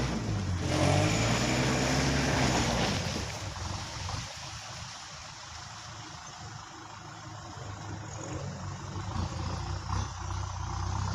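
Kubota tractor's diesel engine running. It is loudest for the first three seconds, drops back, then builds up again toward the end.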